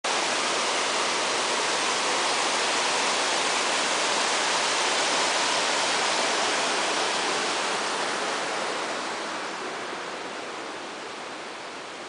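Water pouring over a small concrete weir into a channel: a steady, loud rushing that fades gradually over the last four seconds or so.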